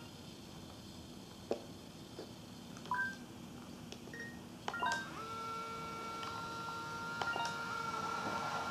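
Short electronic beeps and small clicks from instax SQUARE SQ20 cameras as their control dial and buttons are pressed. From about five seconds in, a steady held tone comes in.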